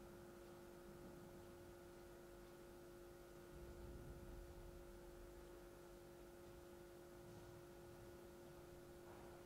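Near silence: room tone with a faint, steady hum of a few constant tones.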